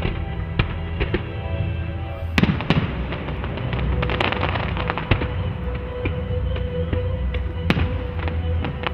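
Fireworks going off: sharp bangs of shells bursting, the two loudest about two and a half seconds in and near the end, with a spell of crackling in the middle. Music plays underneath.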